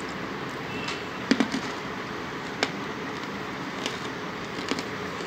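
A few sharp crunches and clicks from hard pieces of baked clay and chalk. The loudest is a quick cluster of two or three about a second in, then single clicks spaced over the next few seconds, over a steady hiss.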